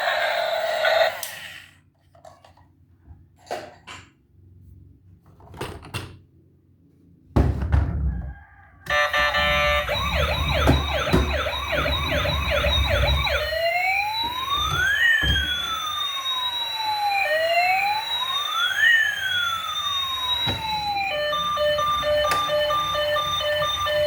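Electronic siren from a toy emergency vehicle. After a few handling clicks and a thump, it plays a fast yelping siren, then a slow wail rising and falling twice, then a pulsing beep pattern near the end.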